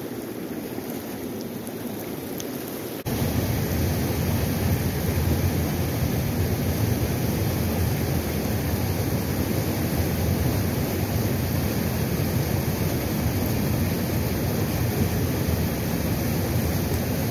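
Fast, high river current rushing and churning over rocks in whitewater, a steady rush with wind noise on the microphone; it jumps louder about three seconds in.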